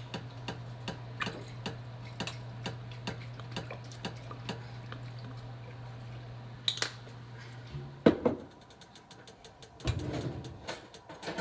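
Worcestershire sauce being measured out by the tablespoon and poured into a soup pot: many light clicks and drips of the spoon, over a steady low hum that stops about eight seconds in. A louder knock follows just after the hum stops.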